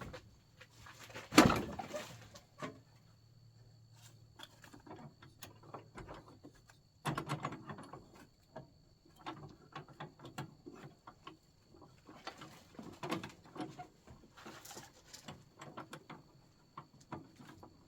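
Hands working on a riding mower's deck: irregular small metal clicks, scrapes and rattles of parts and tools being handled, with one loud knock about a second and a half in.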